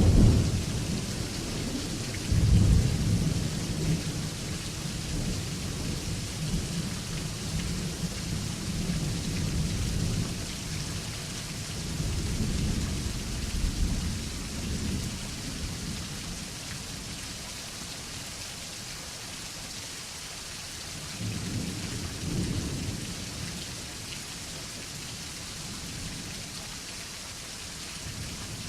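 Steady rain falling, with thunder rolling over it. A loud clap comes right at the start and another about two seconds in, rumbling on and fading over the next dozen seconds, then a shorter rumble about three quarters of the way through.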